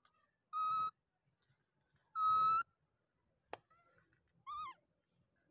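Baby macaque giving coo calls: two clear, level calls about a second and a half apart, then a shorter call that rises and falls. A single sharp click comes between the second and third calls.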